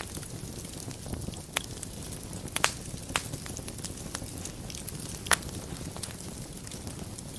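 Fire burning in a fireplace: a steady low rumble of flames broken by a few sharp crackling pops, the loudest about two and a half seconds in and again a little past five seconds.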